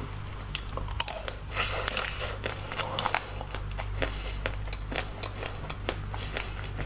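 Biting into a strawberry coated in a hard pink chocolate shell: the shell cracks with a sharp snap about a second in, then crackles and crunches as she chews, with scattered smaller clicks after.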